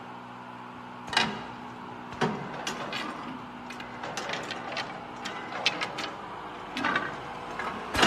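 Automatic broom and mop handle plastic-cap assembly machine running: a steady motor hum with irregular clacks and knocks from its mechanism as the chain conveyor moves the wooden handles along.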